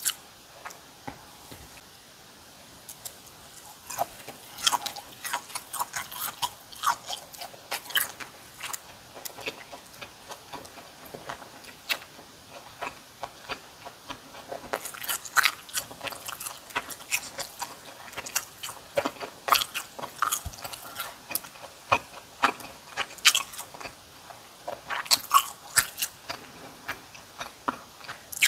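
Close-miked chewing and biting of kimchi and boiled pork (bossam), with crisp crunches coming in irregular clusters. It is sparse for the first few seconds, then steady bouts of crunching follow.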